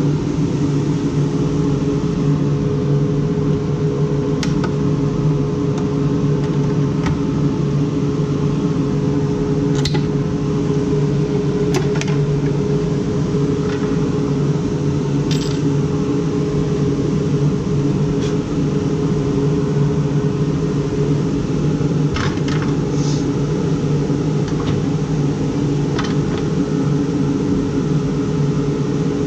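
A small electric motor running steadily with an even, constant hum, with a few faint clicks over it.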